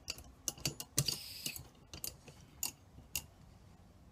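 Small gas camping stove being screwed onto a gas canister: irregular metallic clicks and scrapes as the stove head turns on the threads, with a short hiss about a second in.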